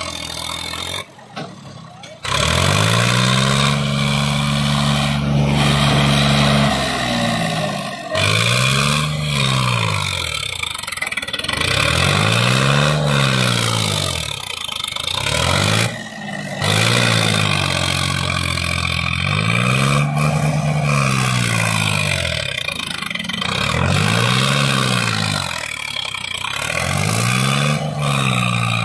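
Sonalika DI 35 tractor's diesel engine revved hard again and again, its pitch held high for a few seconds and then rising and falling about every two seconds. The engine is straining under the load of a fully loaded trolley stuck on the verge.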